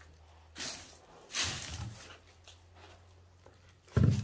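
Handling noise: two short rustles as something is picked up and moved about, then a sudden loud, low thump near the end.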